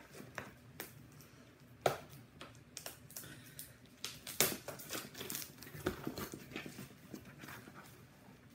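Hands rummaging through an opened package, crinkling and rustling the packing material, with scattered light clicks and knocks as items are handled; the sharpest come about two seconds and four and a half seconds in.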